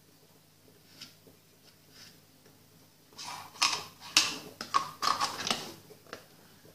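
A quick run of sharp knocks and clatters, starting about three seconds in and lasting about three seconds, from a metal spoon and plastic containers being handled on a countertop; a few faint taps come before it.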